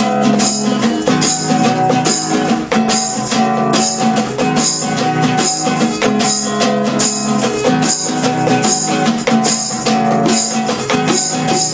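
Instrumental break in a reggae song: acoustic guitar strumming a steady rhythmic chord pattern, with bongo accompaniment.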